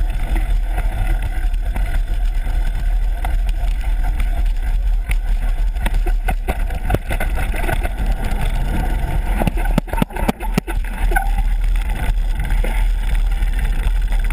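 Wind rumbling hard on a GoPro's microphone as a bicycle is ridden along a dirt trail and onto a wooden boardwalk, with frequent knocks and rattles from the bike jolting over bumps and planks.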